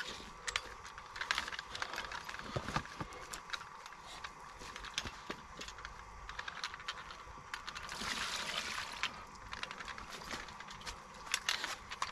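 Handling noise: plastic sheeting crinkling and rustling, with scattered clicks and light knocks, and a longer rustle about eight seconds in.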